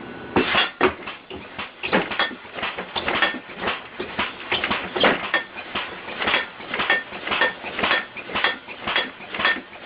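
Repeated clattering of small hard objects, irregular at about two to three knocks a second, each with a short bright ring.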